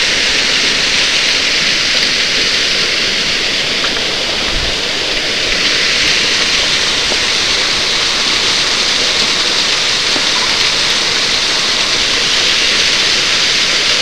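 Small waterfall pouring down a rock face into a pool: a steady, loud hiss of falling water.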